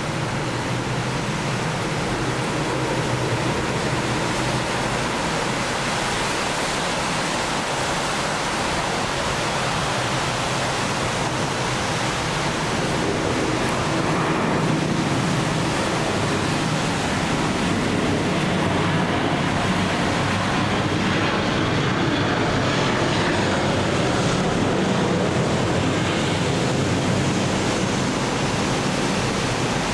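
Boeing 737-800 airliner on approach with its CFM56 jet engines, a steady rushing noise that grows a little louder about halfway through as it passes low overhead and stays up for most of the rest.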